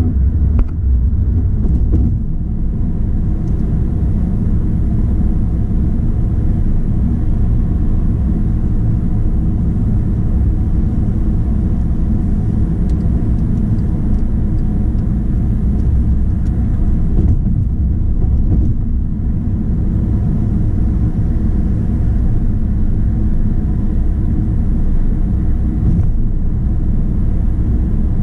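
A car driving on a highway, heard from inside the cabin: a steady low rumble of road and engine noise.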